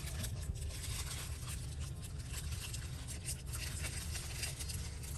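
Paper and tissue scraps being handled, with soft rustling and scraping of paper over a steady low hum.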